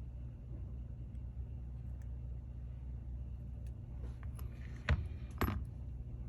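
Steady low hum with a few faint ticks, then two short sharp taps about half a second apart near the end: small tools and parts being handled on the bench while a camera lens is fitted into an iPhone's back.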